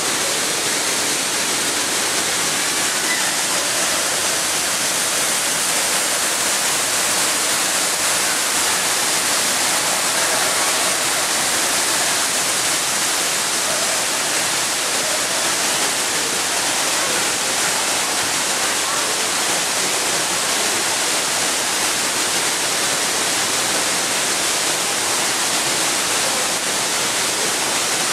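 Steady rush of falling water, as from a waterfall, with faint voices underneath.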